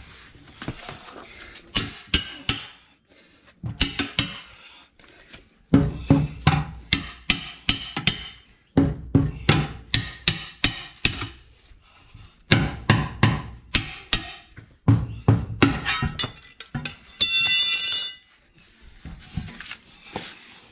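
Repeated hammer strikes in bursts of several blows, two to four a second, during a tractor tyre change. Near the end, a high ringing tone holds for about a second.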